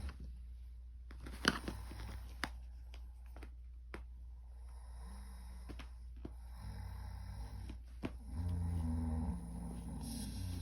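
Loud snoring: a run of drawn-out, low buzzing snores that grow stronger through the second half, the loudest about three-quarters of the way in, with a few sharp clicks in the first few seconds.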